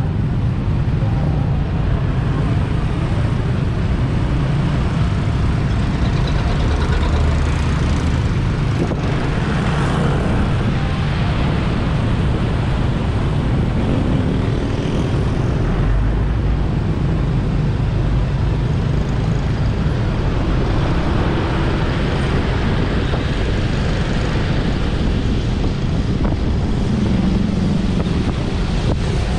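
Steady road and wind noise from a motorbike riding in street traffic, with engines running underneath.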